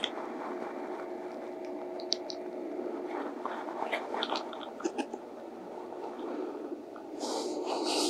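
Quiet room with a faint steady hum, a few light clicks and ticks, and a short rustle near the end.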